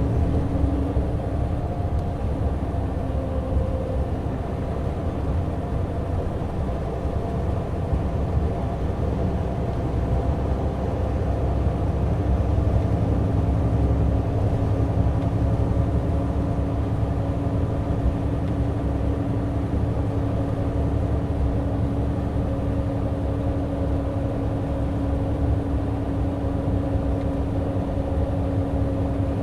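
Mitsubishi Fuso Aero Ace highway coach running steadily at expressway speed: the diesel engine's low rumble and road noise, with a steady whine held under it.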